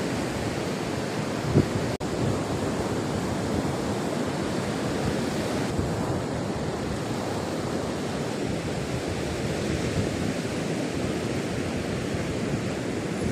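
Ocean surf breaking on the shore, a steady rushing wash of noise with wind on the microphone; a brief thump about one and a half seconds in.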